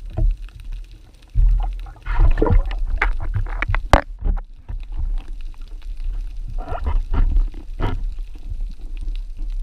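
Underwater water noise picked up by a GoPro Hero 4 in its waterproof housing: an uneven low rumble of moving water with bubbling gushes, broken by a few sharp clicks and knocks, the loudest about four seconds in.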